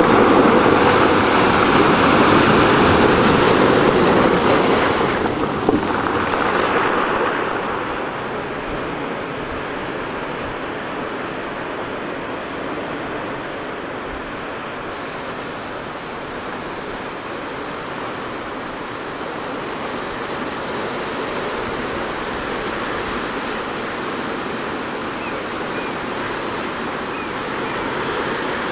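Surf washing in over a shore of wet black boulders and pebbles, loud for the first several seconds. About eight seconds in it gives way to a quieter, steady rush of wind and distant surf.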